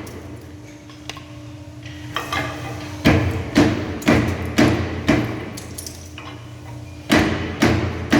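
Decorative stone splitting machine at work: its electric motor hums steadily while the splitting blade comes down in sharp strikes about two a second, a run of five starting about three seconds in and another of three near the end.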